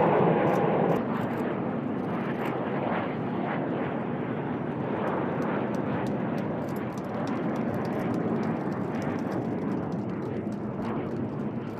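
Kawasaki T-4 jet trainers of the Blue Impulse team passing overhead. A falling jet-engine whine fades out about a second in, and a steady jet roar carries on after it.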